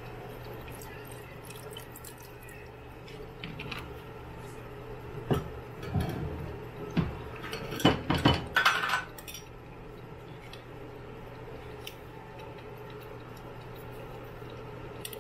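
Kitchen clatter: a handful of knocks and clinks as containers and utensils are handled and set down, bunched in the middle, over a steady low hum.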